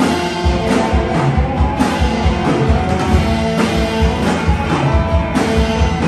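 Rock band playing live: guitar over a steady drum beat.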